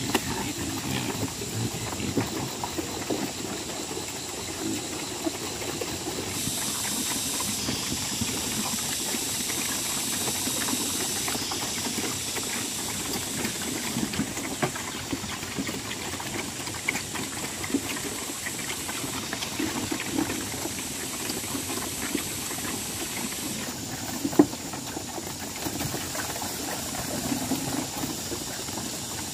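A herd of black pigs eating wet feed from a wooden trough: dense, irregular chomping and slurping. A steady high hiss runs underneath and is louder between about six and eleven seconds in. There is one sharp knock about 24 seconds in.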